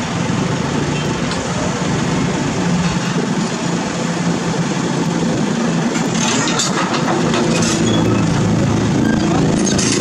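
Diesel engines of a Cat 320D excavator and a light Isuzu dump truck running steadily, the truck's engine pulling as it creeps forward into loading position. Light metallic rattling comes in about six seconds in and again near the end.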